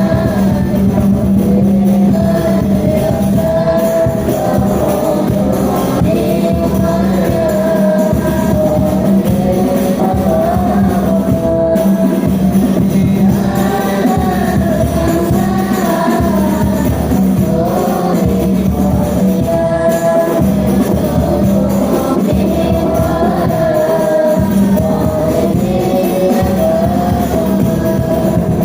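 Music: a child's voice singing an Islamic devotional song in praise of the Prophet, over a steady low drone and hand percussion.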